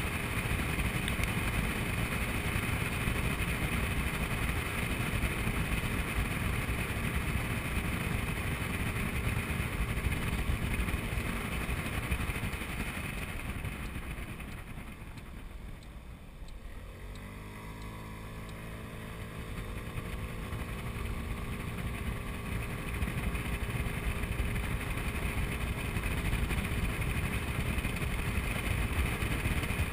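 Honda Ruckus scooter's 49 cc single-cylinder four-stroke engine running on the move, with rushing wind noise. About halfway through the rider eases off and it goes quieter, then the engine pitch rises and levels off as it accelerates again.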